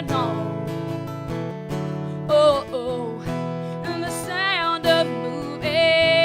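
Acoustic guitar strummed, with a woman singing wordless held and wavering notes over it.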